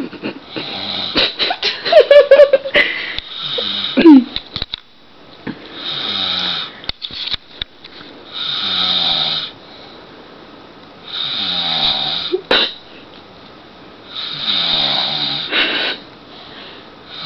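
A man snoring loudly in his sleep. After some irregular louder noises and clicks in the first few seconds, the snores settle into a steady rhythm, one long snore about every three seconds.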